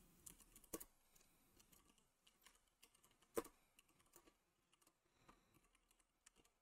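Faint computer keyboard typing: scattered, irregular key clicks, with one louder click about three and a half seconds in.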